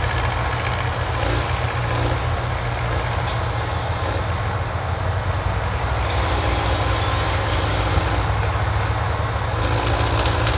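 Engine of a crane-equipped forestry machine running steadily while the crane works.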